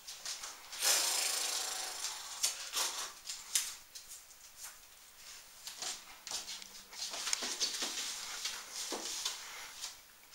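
Scattered scuffs, rubs and light knocks of people moving about on a wooden floor, with a longer rustle about a second in.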